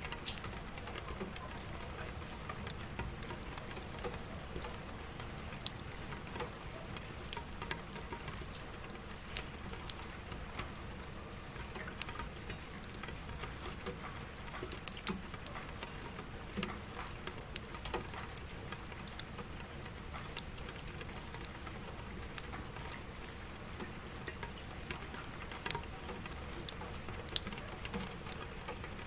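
Rain falling steadily, with many scattered individual drops ticking irregularly on a surface.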